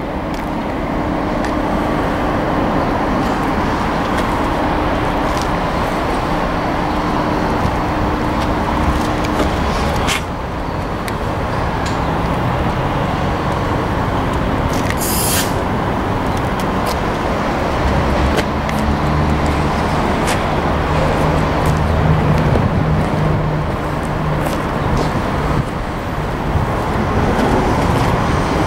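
Cummins LTA-10G1 turbocharged inline-six diesel engine of a 200 kW standby generator set running steadily, with a few short clicks.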